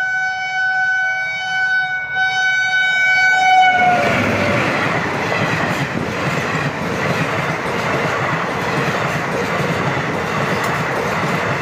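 Passing Indian Railways passenger train: the locomotive horn sounds one long blast for about four seconds, its pitch dropping slightly as it goes past. Then the coaches rush and rattle steadily by at speed.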